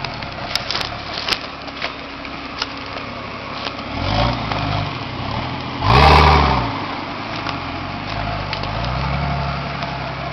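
Nissan Patrol GR turbo-diesel engine running at low revs as it crawls off-road. It revs up and back down twice, about four and six seconds in, the second time loudest. A few sharp cracks come in the first couple of seconds.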